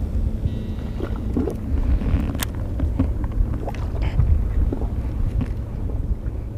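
Wind rumbling on the microphone, with scattered light clicks and taps as the fishing rod and reel are handled, and one sharp click about two and a half seconds in.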